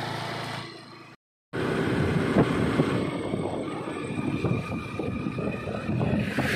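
Motor scooter engine running as it pulls away and fades. After a short cut, riding along a road: engine running under wind buffeting the microphone.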